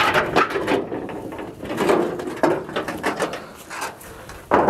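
Scraping and knocking as a cover is dragged and set back over a bunker hatch: a string of short scrapes, with a sudden loud knock near the end.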